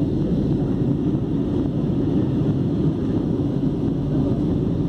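Airliner cabin noise in flight: a steady low rumble of engines and airflow heard from inside the cabin.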